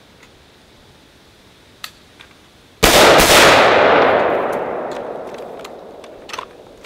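Ruger Mini-14 rifle firing about three seconds in, the report echoing and dying away over roughly three seconds. A few light clicks of handling come before and after.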